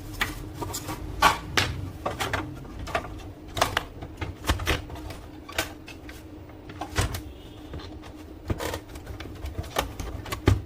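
Irregular clicks and knocks of plastic printer parts being handled and snapped into place while an HP LaserJet M1005 is reassembled, over a faint steady hum.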